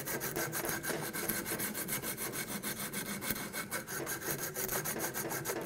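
Coarse-grit abrasive cloth strip pulled rapidly back and forth, shoe-shine style, around the hose nipple of an aluminum water pump housing: a fast, even rasping of many strokes a second that stops near the end. It is scouring coolant-corrosion pitting off the nipple to get a clean aluminum sealing surface for the hose.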